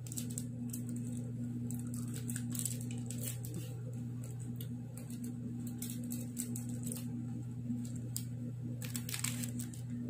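Plastic chocolate wrapper crinkling and clicking as it is handled, with chewing of chocolate, over a steady low hum; a denser burst of crinkling comes about nine seconds in as a new wrapper is picked up.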